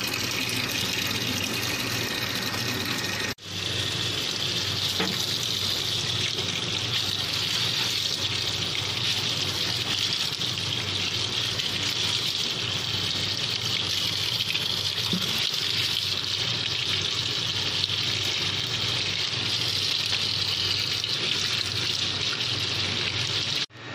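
Tap water gushing steadily into a basin of fern leaves as they are rinsed and stirred by hand. The sound breaks off for an instant twice, a few seconds in and near the end.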